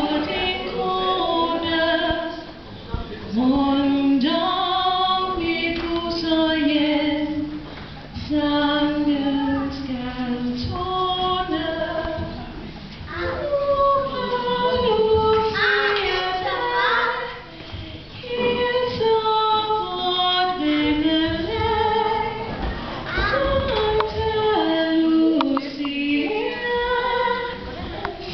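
Several voices, women and children among them, singing a song together, phrase after phrase with short breaths between lines.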